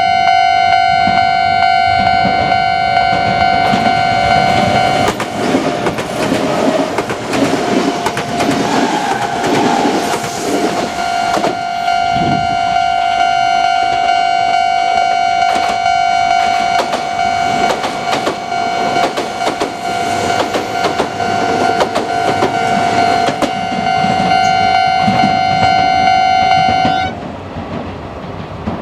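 Japanese level-crossing warning bell ringing steadily, then cutting off near the end as the barriers are about to lift. A Kintetsu train passes over the crossing from about five seconds in, its wheels clattering over the rail joints.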